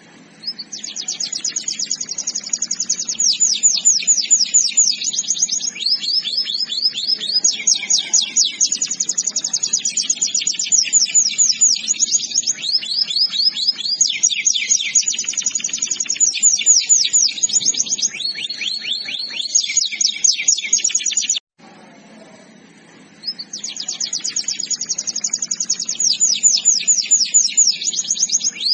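Domestic canary singing long rolling trills of rapid repeated high notes, phrase after phrase shifting in pitch. The song cuts off abruptly about two-thirds of the way through and starts again a couple of seconds later, over a faint low hum.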